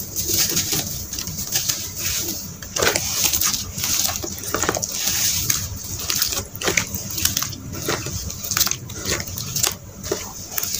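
Hands crumbling and squeezing lumps of wet red sand in muddy water in a plastic tub: irregular wet squelching, crackling and splashing.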